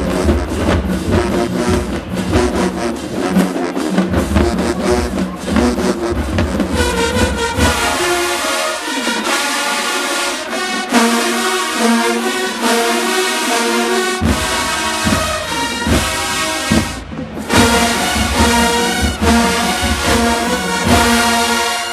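HBCU-style marching band playing, brass section over a drum line. The bass drums drop out for several seconds in the middle, leaving the brass playing held chords, then the drums come back in. The band cuts off briefly once near the end.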